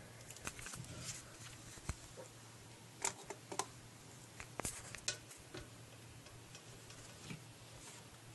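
Toothbrush and toothpaste tubes being handled at a bathroom cup: faint, scattered plastic clicks and taps, about a dozen, irregularly spaced, over a low steady hum.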